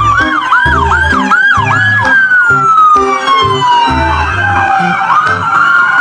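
Police siren: a fast yelp of quick rising-and-falling tones for about two seconds, then a long wail that falls slowly in pitch, over background music with a steady beat.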